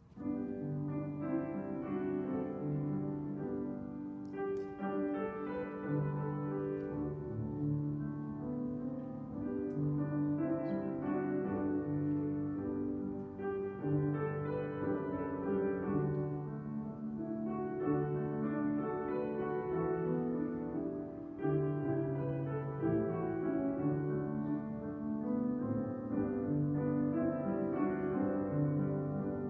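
Instrumental piano music with held chords and a slow, repeating bass line, starting suddenly at the outset.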